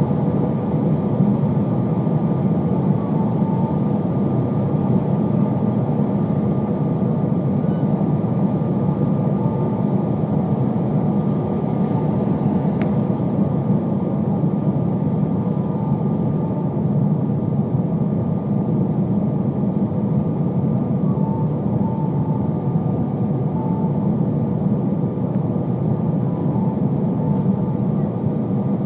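Steady cabin noise inside an Airbus A320 on approach with flaps extended: the deep, even hum of the engines and the rush of air over the airframe. One faint click a little before the middle.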